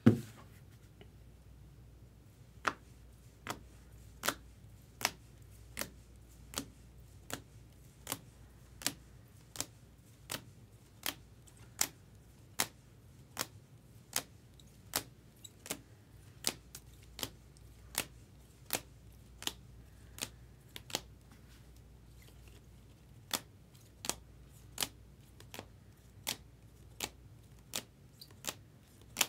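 Trading cards being set down one at a time onto a stack, a sharp click with each card about every three quarters of a second, with a pause of about two seconds before the clicking resumes.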